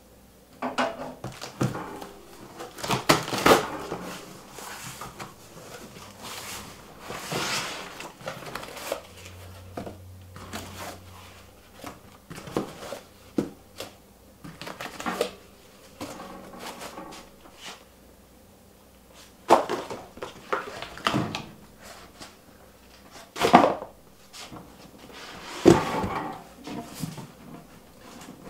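Cardboard shipping box being opened and unpacked by hand: flaps folded back and cardboard packing pieces pulled out and set down, giving a run of scrapes, rustles and knocks with a few louder ones spread through.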